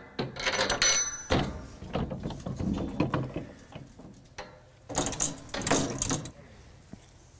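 Powder-coated steel kennel frame panels with wire mesh rattling and knocking as they are swung and fitted together by hand, in irregular bursts of clatter.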